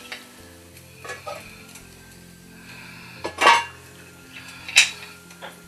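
Metal pots, lids and plates clinking and clattering as they are handled, with two louder clanks about three and a half and nearly five seconds in.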